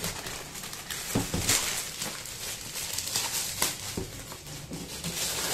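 Rustling and crinkling of packaging being handled and unwrapped, with scattered light clicks and taps.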